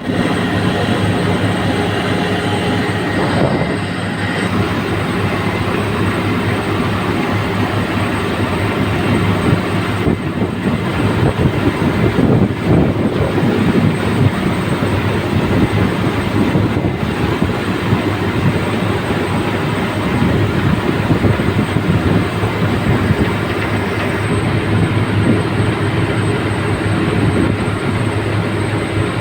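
Drilling rig machinery running: a loud, steady heavy-machine drone with a low hum and some rattle, rising and falling a little but never stopping.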